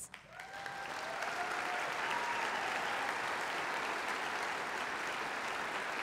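Large audience applauding, the clapping building up over about the first second and then holding steady.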